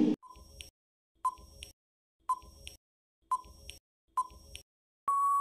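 Quiz countdown-timer sound effect: five short ticks about a second apart, each followed by a fainter tick, then a long steady beep near the end as the count runs out.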